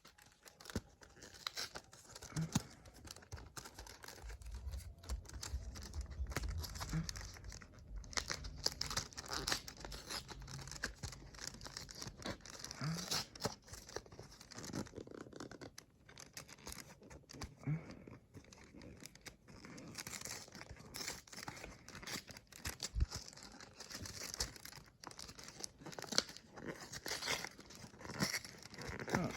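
Plastic packaging crinkling and tearing as it is handled and opened, with irregular clicks and crackles and some dull handling bumps.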